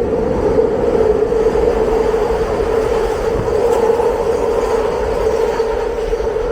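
A train running past with a loud, steady whine.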